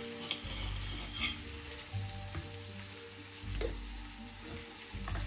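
Chicken fillets frying in a pan with a soft, steady sizzle, with a few light clicks and knocks from a knife cutting a tomato and from handling the pieces.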